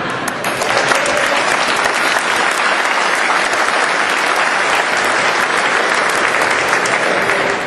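Crowd applauding, a dense mass of hand claps that dies down near the end.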